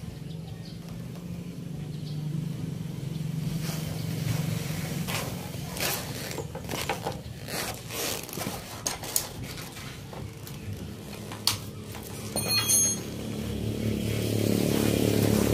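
A motor vehicle engine running, growing steadily louder near the end, over scattered light clicks and knocks.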